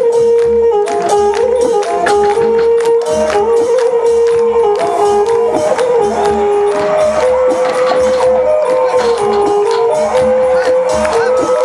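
Traditional Thai music: a held melody that steps from note to note over evenly spaced low drum beats and frequent bright percussion strokes.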